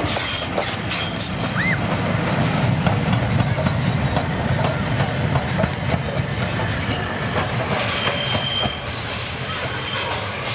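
LNER Peppercorn A1 4-6-2 steam locomotive 60163 Tornado rolling slowly past: a steady low rumble of wheels on rail, with a few sharp clicks in the first two seconds.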